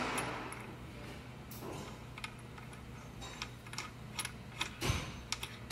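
Light, scattered metallic clicks and taps of small steel parts, a washer and the locking bolt, being handled and test-fitted on a Bridgeport J-head's belt housing lock, with one slightly heavier knock near the end.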